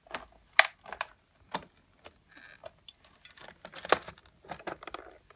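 Scissors cutting through a clear plastic clamshell toy package: a string of irregular sharp snips and plastic crackles, roughly one every half-second.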